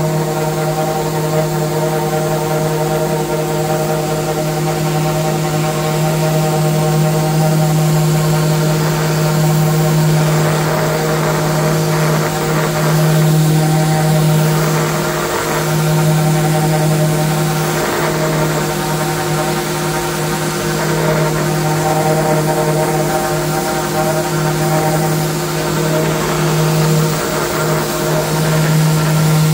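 Random orbital sander running steadily with an 80-grit disc, its pad sanding the paint off a V-carved MDF panel. It makes a loud, even hum that dips briefly a couple of times in the middle.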